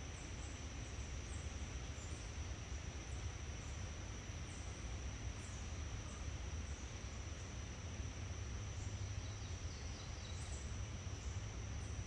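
Summer forest ambience: a steady high-pitched insect chorus, with scattered short, high bird chirps over a low steady rumble.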